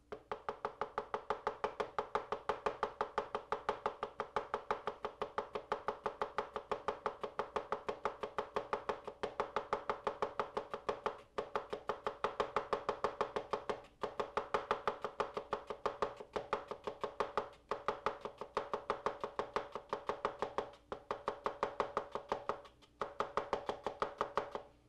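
Chef's knife slicing an onion thinly on a plastic cutting board: quick, even strokes at about four a second in a steady rhythm, broken by a few short pauses.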